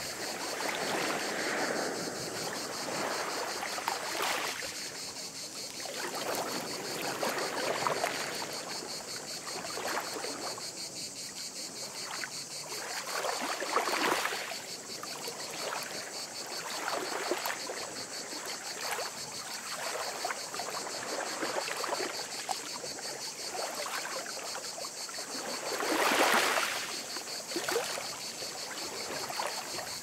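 Running water, washing and gurgling in irregular swells every few seconds, over a steady high trilling of insects.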